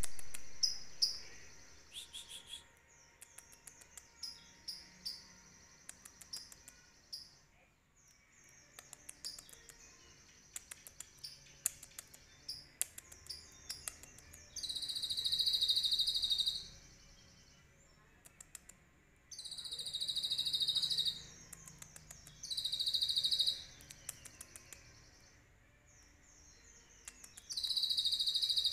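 Male Van Hasselt's sunbird (kolibri ninja) singing: a string of short, high chirps, then four loud, rapid high trills a few seconds apart, each lasting one to two seconds. The song is filled with learned phrases of the cililin.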